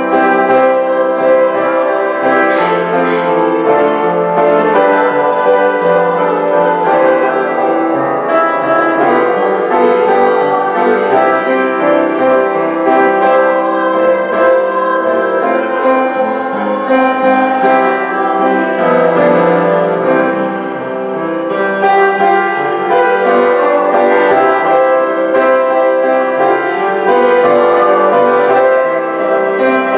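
A hymn played on a keyboard instrument: full chords held and changing from one to the next.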